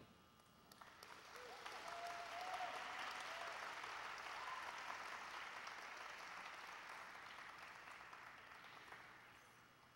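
Audience applauding as the music stops, building over the first couple of seconds, then slowly dying away, with a few brief voices calling out near the start.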